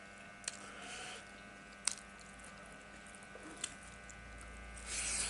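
Fingers mixing rice and curry by hand in a metal bowl: soft squishing with a few sharp clicks, and a louder rustling burst near the end. A faint steady electrical hum runs underneath.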